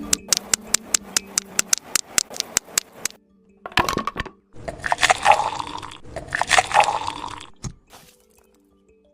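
Small hard taps on mini bricks in a fast series, about five a second for some three seconds, then a short scrape and two longer bouts of gritty scraping, as of a small trowel working cement.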